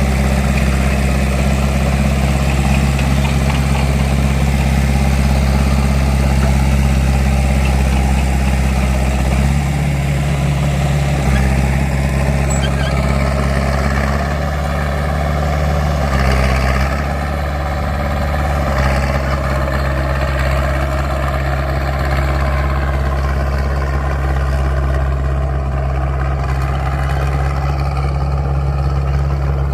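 Caterpillar D3C bulldozer's diesel engine running steadily, its pitch shifting a couple of times, about ten and about sixteen seconds in, as throttle or load changes.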